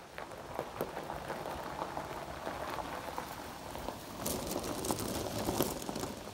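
Club Car golf cart rolling over a gravel driveway, its tyres crunching and popping on the stones, growing louder as it comes close about four to six seconds in.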